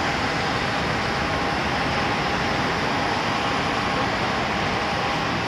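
Steady roar of road traffic passing on the boulevard beneath, an even rushing noise with a faint steady tone running through it.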